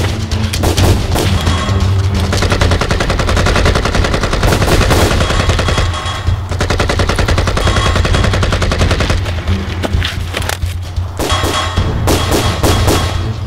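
Rapid automatic rifle fire in long bursts, broken by brief pauses about halfway and again near the end, over a low steady drone.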